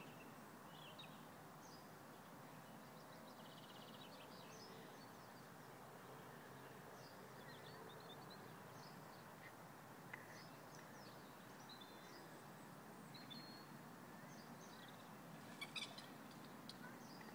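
Faint outdoor background with small birds chirping now and then, and a brief louder cluster of sharp notes near the end.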